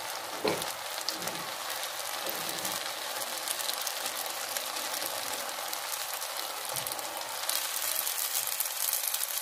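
Hot oil sizzling and crackling steadily around a batter-dipped achappam (rose cookie) mould as the rice batter fries into the cookie; the sizzle gets a little louder near the end.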